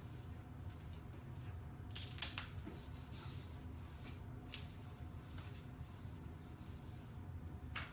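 A few short scrapes and rustles of vinyl wrap film being worked and cut by hand, over a steady low hum.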